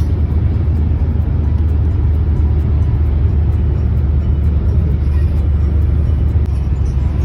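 Car driving: a steady, loud low rumble of engine and road noise.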